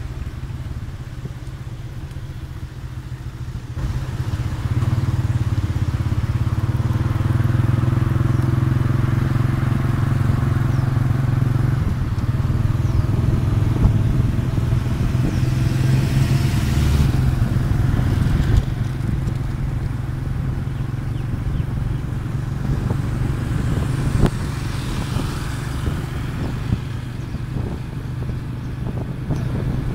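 Small motorbike engine running steadily while being ridden along a street, with road and wind noise. It gets louder about four seconds in as the bike speeds up.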